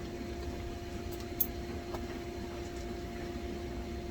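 Air conditioner condensing unit running with a steady electrical hum over a low rumble, and a single light tick about a second and a half in.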